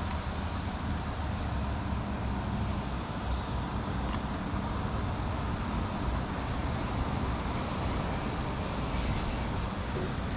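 Steady rain hiss on the lake and the boat, with a steady low rumble underneath.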